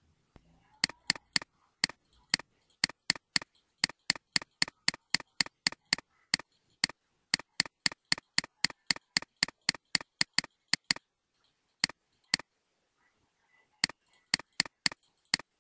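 Computer mouse button clicked over and over, about three to four sharp clicks a second, scrolling a file list one step per click. The clicks pause briefly twice near the end, then start again.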